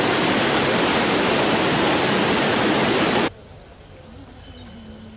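Floodwater rushing over rocks in a rain-swollen river, a loud steady rushing of white water. It cuts off suddenly about three seconds in, leaving only faint background sound.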